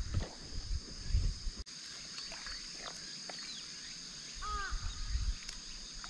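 Outdoor ambience: a steady high-pitched chorus of insects, with a few short, curving bird chirps and some low rumble on the microphone.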